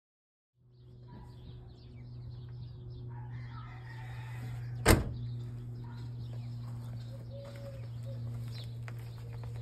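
A steady low mechanical hum with one sharp knock about five seconds in, and a few faint ticks.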